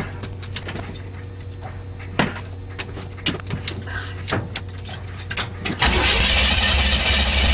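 Scattered clicks and knocks over a low steady hum while a flooded 1977 Chevy pickup's 350 V8 is being started, then about six seconds in the engine catches and runs loud.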